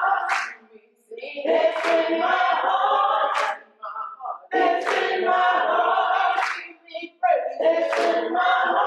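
Small gospel choir of men and women singing a short refrain in phrases a few seconds long with brief pauses between, clapping their hands along.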